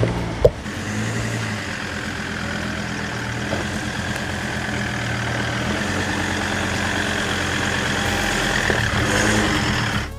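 Off-road 4x4 vehicle engine running steadily as the convoy sets off, with a single sharp knock about half a second in.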